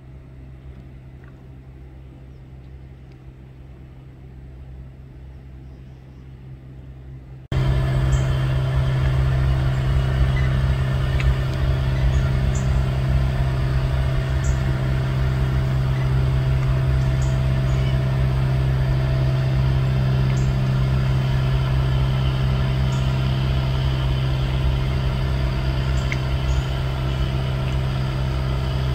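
Steady low hum of an idling boat motor, which jumps suddenly much louder about seven seconds in and then holds level.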